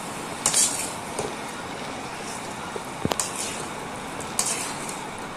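Chicken pieces sizzling in oil in a metal kadai while a metal spatula stirs them, scraping the pan a few times, with one sharp click about three seconds in.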